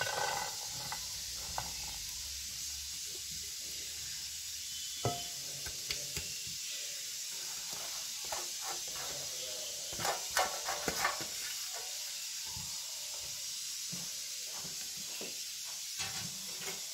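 Steady hiss with a few soft taps and clinks of kitchenware, a small cluster of them about ten seconds in.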